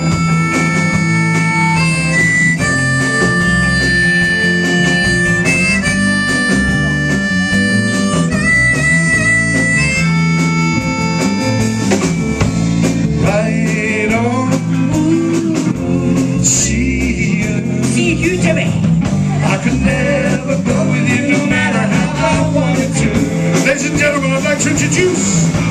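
Blues harmonica solo over a live electric band of guitar, bass guitar and drums. The harp holds long, steady notes for the first half, then plays wavering, bent notes.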